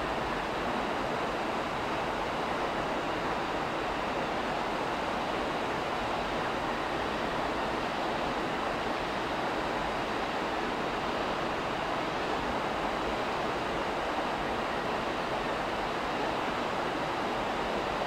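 Steady, even rushing noise at a constant level, with no swells or breaks.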